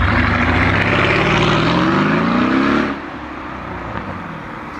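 Performance car engine accelerating hard, its pitch rising steadily for about three seconds, then cutting back suddenly to a lower rumble as the throttle is lifted.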